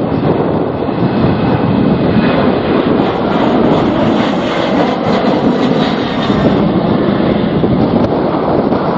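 An aircraft passing close by, its engines giving a loud, steady rumble that swells with a rushing hiss in the middle of the stretch. Strong gusty wind buffets the microphone throughout.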